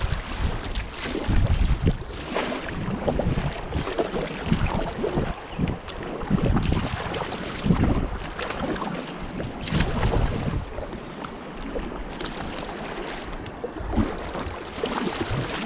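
River water rushing and splashing around a kayak, with wind buffeting the microphone in irregular gusts.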